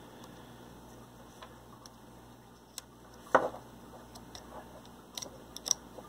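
Scattered light clicks and taps of a metal hobby knife against a plastic XT60 connector being handled. One louder knock comes a little past three seconds in, and a quick cluster of clicks comes near the end.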